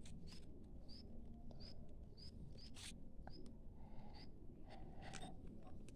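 A pen scratching across paper in short strokes as lines are drawn. A small bird chirps in the background, a short high note repeating a little less than twice a second.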